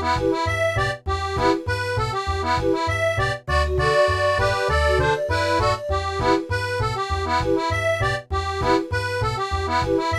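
Background music led by an accordion, over a steady bouncing bass beat.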